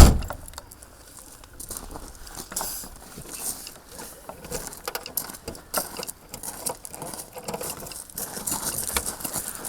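A sharp thump, then irregular small crackles and rustling that keep going.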